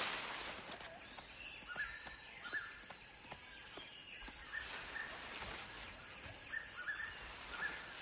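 Faint forest ambience: a soft, steady hiss with scattered short, high bird chirps about every second or so.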